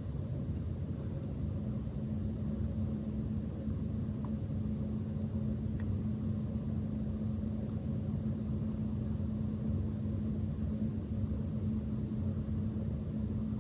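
Steady low hum and rumble with a faint constant drone in it, and two barely audible ticks partway through.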